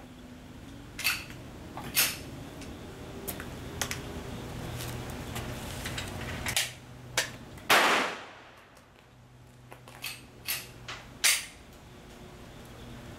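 Pistol shots at a shooting range: about ten sharp cracks at uneven spacing, the loudest and longest about eight seconds in, over a low steady hum.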